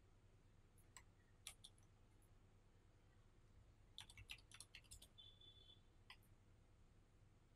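Faint computer keyboard and mouse clicks: a few single clicks in the first two seconds, then a quick run of about eight keystrokes around four to five seconds in, and one last click about six seconds in. A short faint high beep sounds just after the run of keystrokes.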